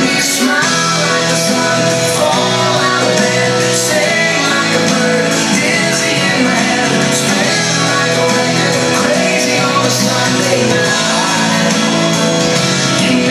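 Music with a singing voice, playing continuously as the accompaniment to a synchronized swimming solo routine.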